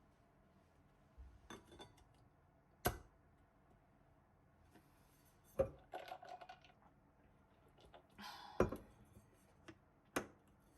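Scattered light clinks and knocks of dishes, glass and utensils being handled, about half a dozen separate strikes with short clattering between them.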